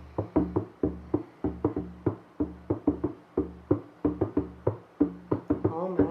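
Hand drum beaten in a steady, fast rhythm of about three to four strokes a second, each stroke leaving a low ringing boom.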